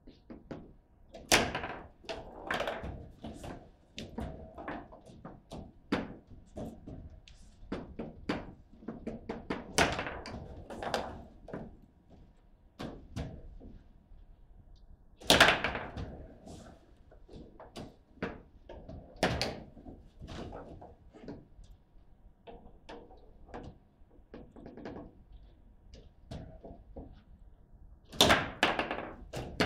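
Table football game in play: an irregular run of sharp plastic-and-metal knocks as the figures strike the ball, the ball hits the table walls and the rods are jerked, with a few louder bangs about a second and a half in, about fifteen seconds in and near the end.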